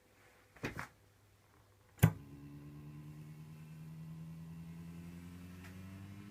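A faint click, then a sharp snap about two seconds in as a Bedini pulse motor is switched on. A steady pitched hum from the pulsed coil and spinning rotor follows, slowly rising in pitch as the rotor picks up speed.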